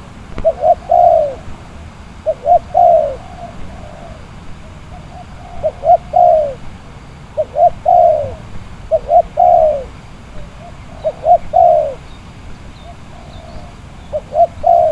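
Spotted dove (tekukur) cooing: about seven phrases, each two or three short coos followed by a longer note that falls in pitch, repeated every second or two.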